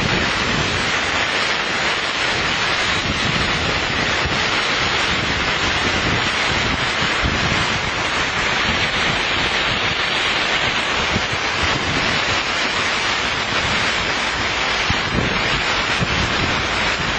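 Heavy rain pouring down in a steady hiss, with wind buffeting the microphone in a low rumble.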